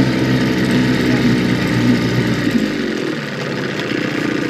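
Boat motor running. About two and a half seconds in, the low rumble drops away and the engine note shifts, as the boat works its way off a riverbank.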